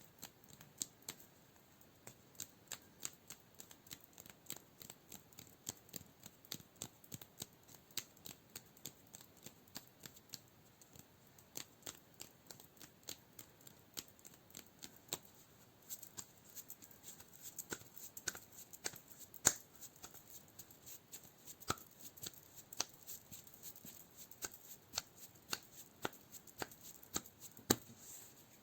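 Close-miked ASMR hand sounds: quick, irregular finger clicks and taps, several a second. A denser rustling comes in about halfway.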